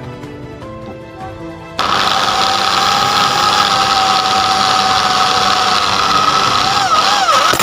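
Background music, then about two seconds in an electric drill starts and runs loud and steady with a whining motor as its twist bit bores into a metal plate. Near the end the whine wobbles and drops in pitch as the drill slows.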